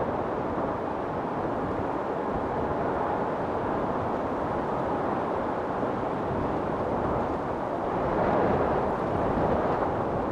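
Storm wind blowing steadily, with two stronger gusts swelling up near the end.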